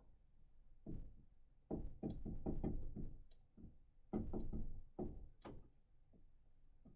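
Dry-erase marker writing on a whiteboard: short scratchy strokes and light taps against the board, in three bursts with pauses between.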